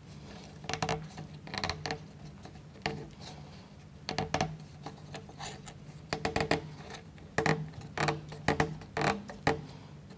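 Small laser-cut plywood model-kit parts clicking and tapping as they are handled, pressed together and laid on a cutting mat: light, irregular clicks.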